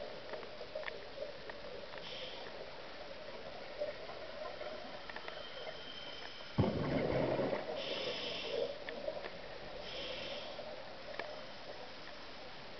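Scuba diver's regulator breathing heard through an underwater camera housing: short hissing inhalations and, about halfway through, a sudden rumbling burst of exhaled bubbles lasting about a second, over a steady underwater hiss with faint clicks.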